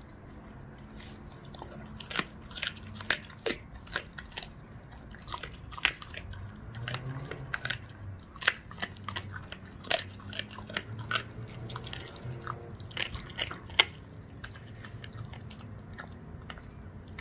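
German Shepherd chewing chicken feet, the small bones crunching in sharp, irregular cracks. The crunching starts about two seconds in and dies away near the end.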